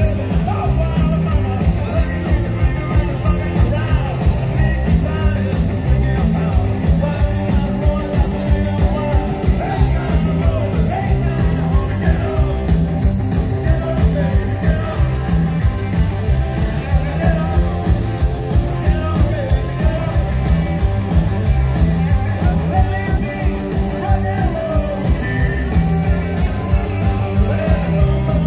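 Live rock and roll band playing at full volume: drums, bass guitar and electric guitars over a steady driving beat.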